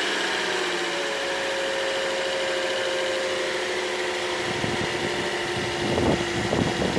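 2009 Toyota Corolla's four-cylinder engine idling steadily just after a cold start on new spark plugs, its idle pitch easing down a little in the first second or so. It sounds good, as good as new. A few dull knocks come about five to six seconds in.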